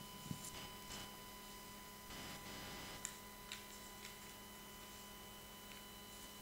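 Low room tone dominated by a steady electrical hum from the sound system, with a few faint clicks and a brief soft rustle as papers and the laptop are handled.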